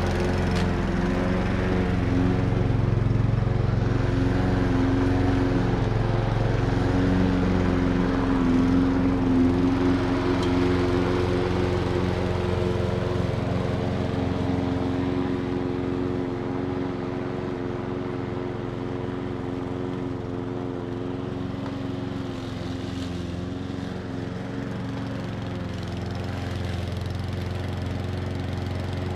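Old Hecht walk-behind lawn mower running steadily while cutting grass. It grows somewhat quieter about halfway through as it moves off along the strip.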